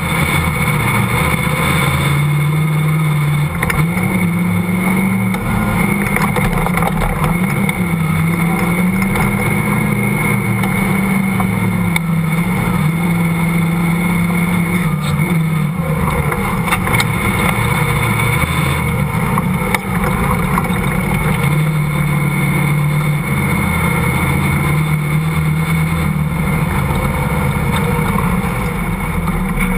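Off-road vehicle's engine running hard while driving over sand dunes, its pitch rising and falling with the throttle and gear changes.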